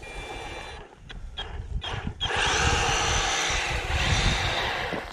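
EGO battery power head driving its bristle brush attachment over dormant grass, brushing lightly to lift dead grass and thatch. The brush eases off for about two seconds, with a few clicks, then runs up again and sweeps steadily through the grass.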